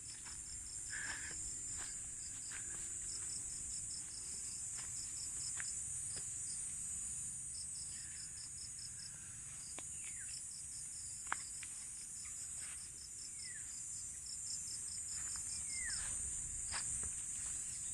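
Steady high-pitched insect chorus over farm fields, with runs of quick, evenly spaced chirps. Now and then a bird gives a short call that falls in pitch.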